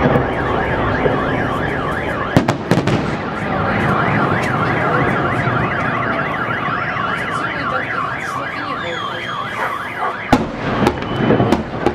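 Car alarm warbling up and down repeatedly, with sharp firework bangs about two and a half seconds in and again near the end.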